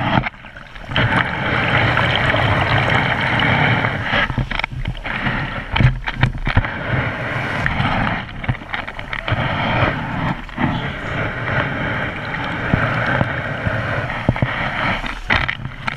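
Shallow beach surf washing and foaming right over a camera at the water's edge, a loud, hissing rush that comes in surges and eases off briefly every few seconds as each wash comes in and drains back.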